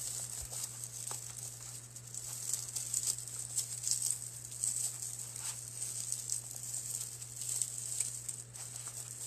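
Dry raffia strands rustling and crinkling in the hands as they are twisted and tied into a bow, in small irregular scratchy bursts over a steady low hum.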